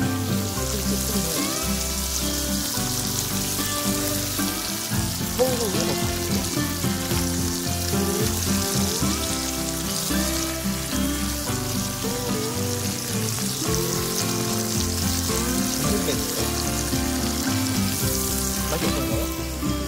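Slices of beef sizzling as they fry in butter in a frying pan, with background music playing over it.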